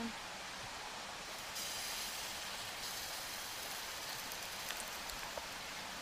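Pancake batter frying in hot oil in a titanium frying pan over a wood-burning stove: a steady sizzle that grows brighter about a second and a half in as the batter goes into the pan, with a few light ticks.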